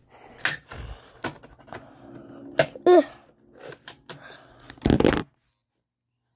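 Clicks, taps and rustling of a plastic DVD case and disc being handled. A short pitched squeak comes about three seconds in, and a loud burst of noise about five seconds in, after which the sound cuts off abruptly to dead silence.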